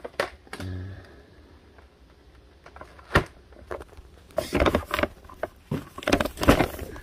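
Firework cake boxes being handled: a sharp knock about three seconds in, then two bursts of scraping and rustling cardboard.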